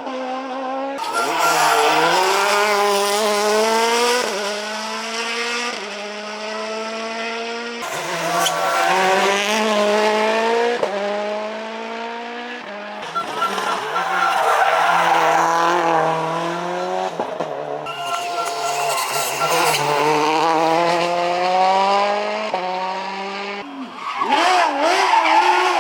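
Rally cars accelerating hard, engine pitch climbing and dropping back with each upshift, with tyre squeal from sliding. Several short passes follow one another with abrupt cuts between them.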